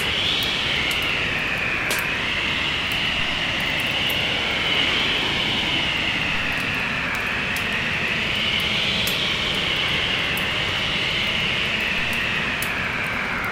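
Storm wind howling steadily, its pitch slowly wavering up and down, with a wood fire's scattered crackles on top.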